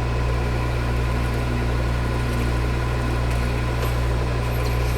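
Metal lathe running steadily during a boring pass, its motor hum constant with an even cutting noise.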